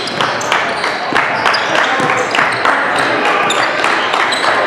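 Live gym sound of a basketball game: the ball bouncing on the court in repeated sharp knocks, with short high squeaks and background voices echoing in the hall.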